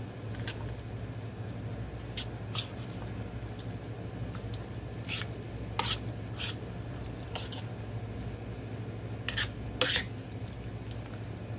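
A utensil stirring thick chili and black beans in a stainless steel pot, with irregular clicks and scrapes as it knocks against the pot's side, the strongest about halfway and near the end. A steady low hum runs underneath.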